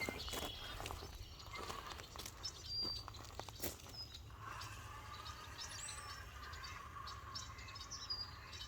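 Faint outdoor ambience of scattered short bird chirps, with a steady trill coming in about halfway through and a few sharp clicks.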